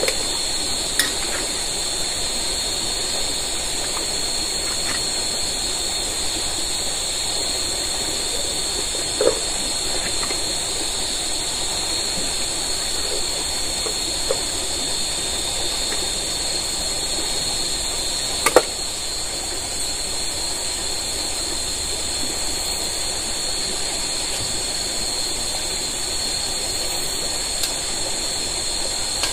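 Steady night ambience over a river in tropical forest: a constant high-pitched insect chorus over an even hiss of flowing water, with a few faint clicks and a sharper knock about 18 seconds in.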